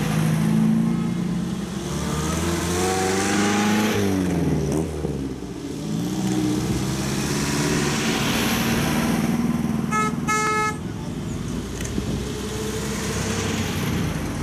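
Classic cars driving past one after another, their engines running, the pitch dropping as each goes by. About ten seconds in, a car horn gives a short toot.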